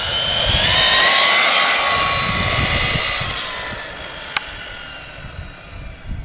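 1:6-scale RC car's 2250KV brushless motor and drivetrain, run on a 4S LiPo, whining at high speed as the car passes close. The high whine of several pitches rises, holds, then drops and fades after about three seconds as the car drives away. A single sharp click about four seconds in.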